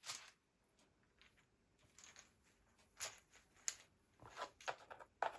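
Faint handling noise: soft rustling and a few light clicks, the clearest about three seconds in and several more near the end.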